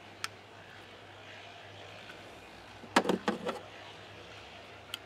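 Light handling clicks: a single tick just after the start, then a quick cluster of four or five metallic clacks about three seconds in as a small open-end wrench is picked up, and a couple of faint ticks near the end.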